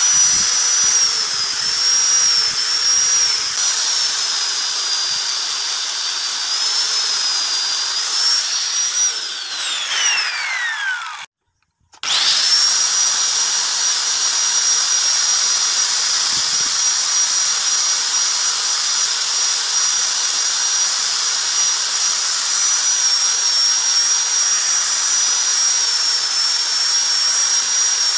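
Electric angle grinder running at high speed while grinding and shaping a PVC pipe knife handle, its whine wavering as it bears on the work. About nine seconds in it is switched off and winds down in falling pitch. After a short break it starts again, spins up quickly, and runs steadily.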